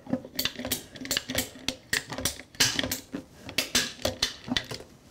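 Hand-held tubing cutter clicking in quick, uneven strokes, about three or four clicks a second, as its handle is squeezed again and again to cut through clear vinyl drain hose.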